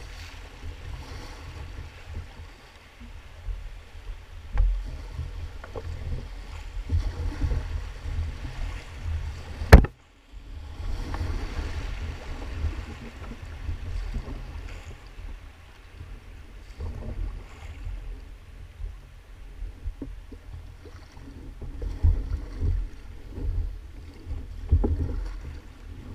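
Double-bladed paddles splashing and river water rushing past an inflatable kayak as it is paddled through a riffle, over a steady low rumble on the microphone. A sharp click a little under ten seconds in, followed by a moment of silence.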